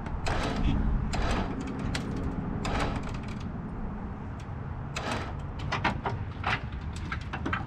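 Electric winch on a wooden gantry crane running as it takes up the weight of a pickup truck cab, with many sharp clicks and creaks as the load comes on.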